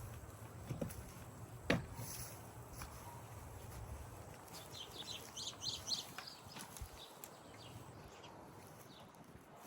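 Two sharp knocks, then a few seconds of light scraping and rustling from hand work turning over a garden bed of mulch and compost.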